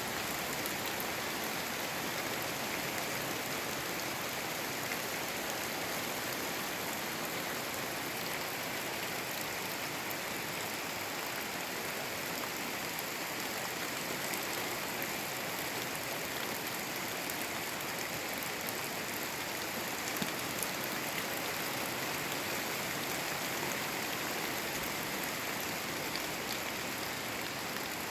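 Steady rushing water: an even, unchanging hiss with a few faint scattered ticks.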